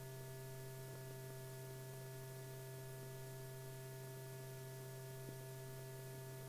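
Steady electrical hum with a few steady higher tones above it, the background hum of an old film soundtrack.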